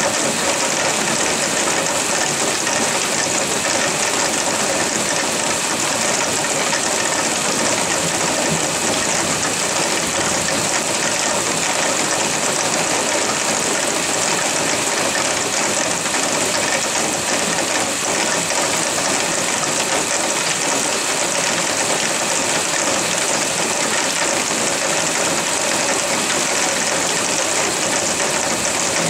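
Heavy rain pouring steadily: a dense, even hiss that does not let up.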